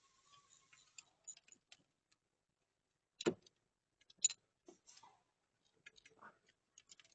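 Faint, scattered metallic clicks and ticks of hand tools as a thread tap is worked in a spark plug hole, with two sharper clicks about three and four seconds in.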